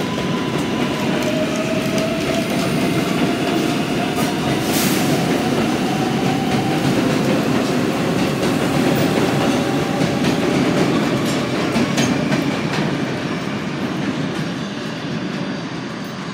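An R188 subway train pulling out of the station on elevated track. Its motors give a slowly rising whine over a steady rumble of wheels on rail, with a few sharp clicks over the rail joints. The sound fades in the last few seconds as the train leaves.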